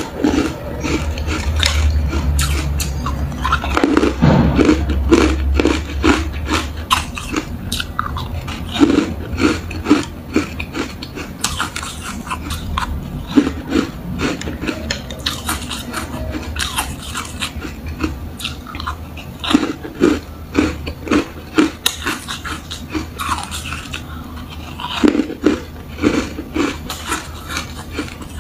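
Close-miked biting and chewing of yellow foam-ice balls: clusters of quick, crisp crunches one after another, over a low steady hum.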